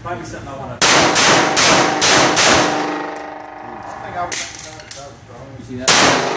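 Glock pistol fired rapidly under the shot timer: a quick string of about five shots in the first couple of seconds, a lull, another shot or two, then a new string starting near the end, each shot echoing off the concrete range.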